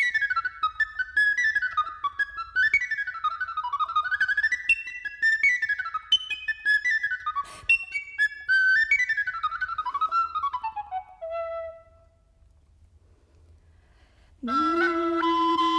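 Recorder playing fast runs that rise and fall in pitch, coming down to a lower note at about three quarters of the way through. After a pause of about two seconds, a long held low note begins near the end.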